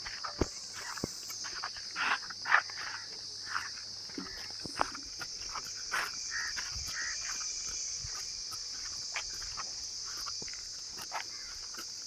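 Steady high-pitched chirring of insects, with scattered short clicks and rustles.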